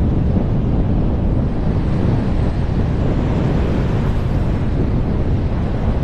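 Loud, steady rush of wind buffeting a helmet camera's microphone in wingsuit flight, heaviest in the low end.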